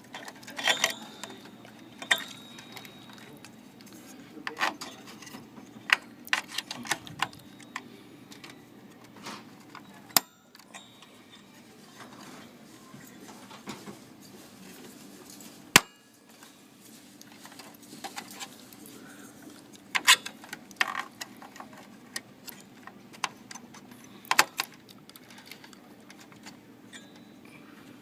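Scattered sharp clicks and knocks from hands handling the parts of a desktop PC (memory modules, latches and plastic case), over a faint steady hum.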